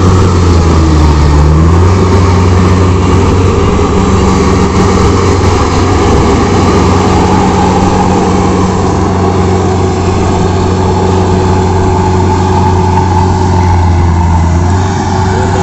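Rice combine harvester's diesel engine running steadily under load while cutting and threshing paddy. The engine note sags briefly and recovers about a second in.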